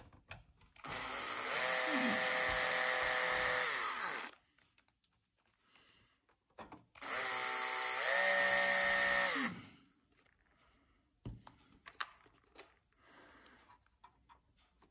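Cordless drill-driver running in two bursts of about three seconds each, turning screws in a projector's chassis, its motor whine rising at each start and falling away at each stop. Small clicks of handling follow near the end.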